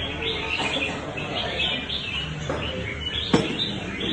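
Red-whiskered bulbul singing in a run of quick, varied chirps, with a single sharp click a little over three seconds in.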